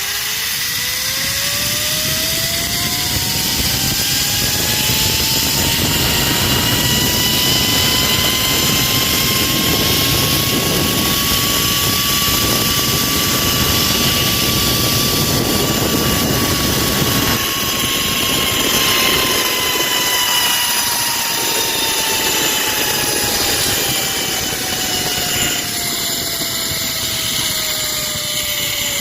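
Zipline trolley pulleys running along the steel cable: a whine that rises in pitch over the first few seconds as the rider gathers speed, holds high through the middle, then slowly falls as the trolley slows. A steady rushing noise runs underneath.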